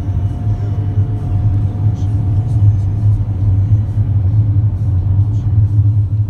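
Steady low rumble of a van's engine and tyres, heard from inside the cabin while driving, with a faint steady tone above it.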